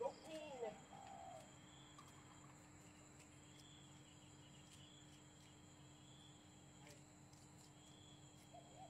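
Near silence: faint outdoor ambience with a steady high hum. In the first second or so there are a few short rising-and-falling calls.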